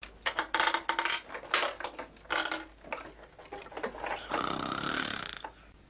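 Baba Yaga's rough, throaty vocal noises: a string of short cries and grunts, then a longer groan a little over four seconds in.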